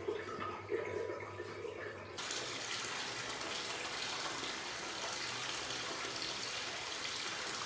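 Water pouring from a bath spout into a nearly full bathtub, a steady splashing rush that starts abruptly about two seconds in.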